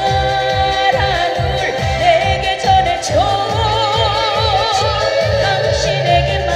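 Trot song performed live: a singer's voice holding long notes with a wide vibrato over a backing track with a steady bass beat.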